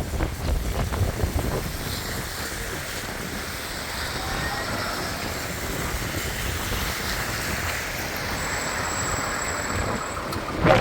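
Strong storm wind rushing steadily, buffeting the microphone in low gusts near the start and again near the end.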